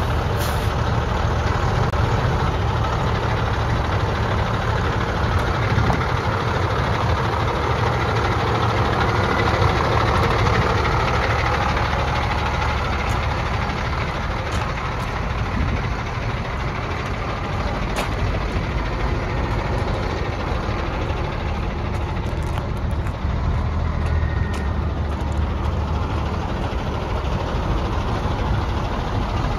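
1996 International 4900's DT466 inline-six diesel engine idling steadily.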